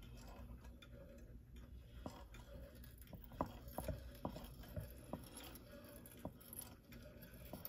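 Faint, irregular light clicks and taps of small hand tools working on a clock movement's plate during rebushing.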